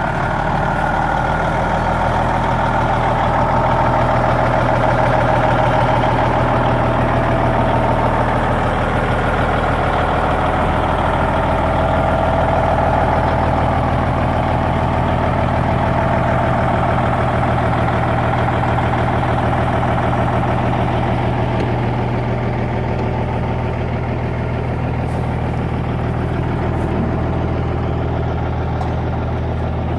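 Diesel engine of a 2001 Peterbilt 379 truck tractor idling steadily.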